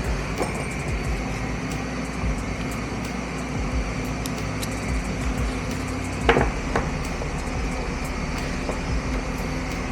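A few sharp clicks and knocks of small parts and tools being handled, the loudest about six seconds in, over a steady low hum.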